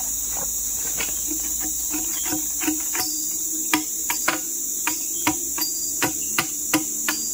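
Steady high-pitched insect chorus of the tropical forest, with sharp knocks from about a third of the way in, about two or three a second: a machete striking the hard ulin (Borneo ironwood) log.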